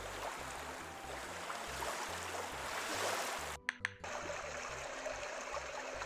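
Moonie plush's sound module playing a steady rushing noise track from its small speaker. A little over halfway through, two short electronic beeps mark a button press, and it switches to its forest stream sound of flowing water.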